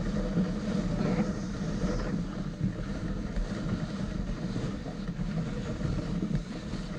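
Dog sled running over packed snow behind its team: a steady rumbling scrape from the runners, with wind on the microphone.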